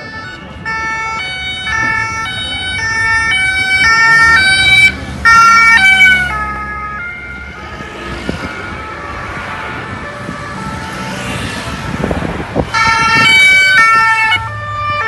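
French two-tone emergency-vehicle siren, alternating between two notes about twice a second. It gets louder and drops in pitch as it passes, about five or six seconds in. After several seconds of steady noise, a two-tone siren sounds again near the end.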